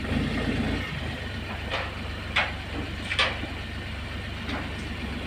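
An engine idling steadily, with four short sharp knocks spread through it.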